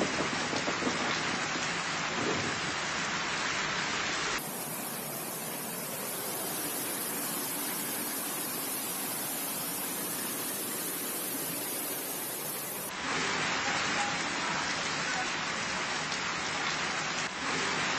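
Heavy rain and rushing floodwater, a steady hiss of water, in three separate recordings that cut abruptly from one to the next about four seconds in and again about thirteen seconds in.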